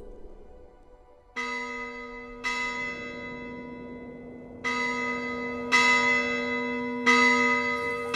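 Church bell tolling: five strokes at uneven spacing, each ringing on, louder toward the end, after a near-silent first second and a half.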